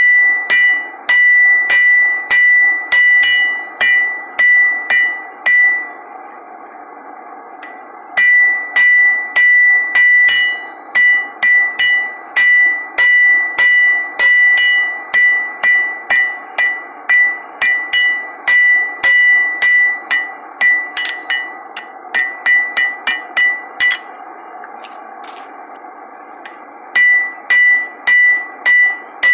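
Blacksmith's hand hammer striking a red-hot iron bar on an anvil: runs of blows at about two a second, each with a bright metallic ring from the anvil. The hammering stops twice for a couple of seconds, about six seconds in and again near the end.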